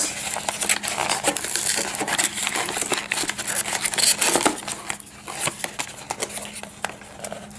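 Cardboard box insert and packaging being handled as a webcam is worked out of it: rustling, scraping and crinkling with many small clicks, busiest in the first few seconds and quieter after about five seconds.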